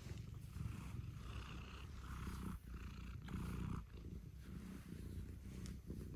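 Domestic cat purring close to the microphone while being stroked: a steady low rumble that swells and fades in roughly one-second cycles.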